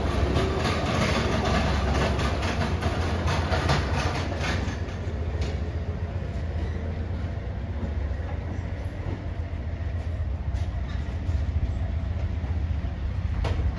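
Amtrak passenger cars rolling past at close range, their wheels clicking rapidly over the rail joints above a steady low rumble. A little over five seconds in the last car clears and the clicking stops, leaving a quieter rumble as the train pulls away.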